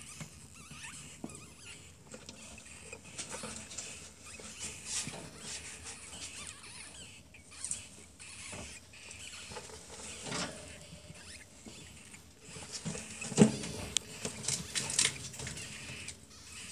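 Newborn ferret kits squeaking in thin, high peeps scattered through, over rustling of the straw bedding as the mother ferret shifts in the nest. A single loud thump comes about three-quarters of the way through.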